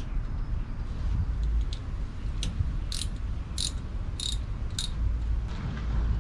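Ratchet wrench clicking in five quick strokes about half a second apart while a spark plug is run out or in, over a steady low rumble.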